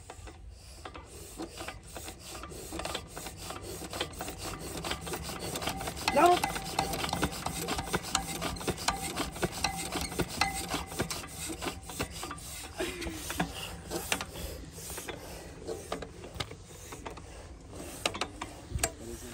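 12 hp single-cylinder stationary diesel water-pump engine being turned over by its crank handle, a dense run of clicking and rasping from the crank and valve gear. It builds up over the first few seconds, with one louder burst about six seconds in.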